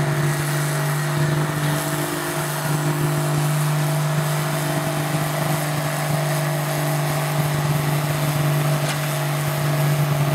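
Tractor engine running at a steady speed, getting a little louder near the end.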